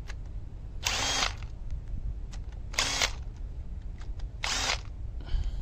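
Power driver spinning the camshaft bridge bolts on an Audi 2.0 TFSI engine in three short whirring bursts about half a second each, roughly every one and a half to two seconds. The bolts are being backed out a little at a time so the bridge, pushed up by valve spring tension, lifts evenly.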